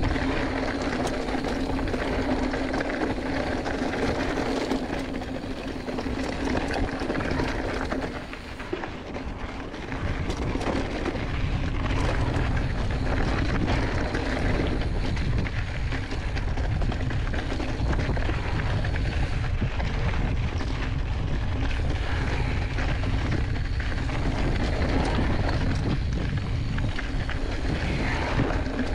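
Giant Fathom 2 hardtail mountain bike riding a rocky gravel singletrack: tyres crunching over stones, with the bike clattering over rocks, and wind buffeting the microphone in a low rumble that grows louder about ten seconds in. A steady hum runs underneath for the first eight seconds or so.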